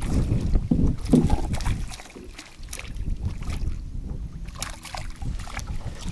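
Gusty wind rumbling on the microphone over open water, loudest for about the first two seconds and then easing, with a few light clicks and knocks.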